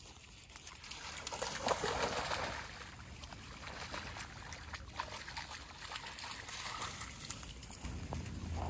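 A mini labradoodle splashing as it wades and swims through shallow seawater, with water trickling and sloshing around it. The splashing is loudest about two seconds in.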